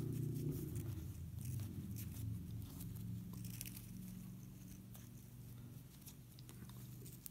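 Faint rustling, crinkling and small clicks of fingers handling a feather and its fluffies, over a steady low hum.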